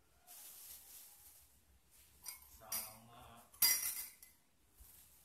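A utensil clinking against a drinking glass, with a soft rustle at the start and a few lighter taps; the loudest clink comes a little under four seconds in and rings briefly.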